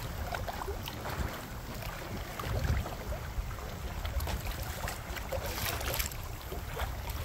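Wind buffeting the microphone with a steady low rumble that gusts about two and a half seconds in, over small waves lapping against a kayak hull, with a few light clicks and splashes near the end.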